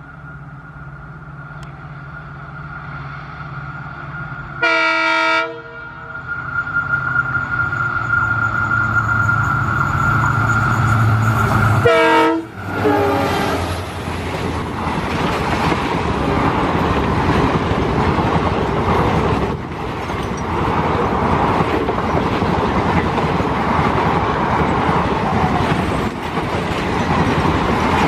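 WDP4D diesel locomotive's EMD two-stroke V16 engine running at speed and growing louder as it approaches, with a steady high whine over it. Its air horn sounds twice in short blasts, about five seconds in and again about twelve seconds in. The locomotive then passes and the coaches rush by with a continuous loud wheel clatter and rumble.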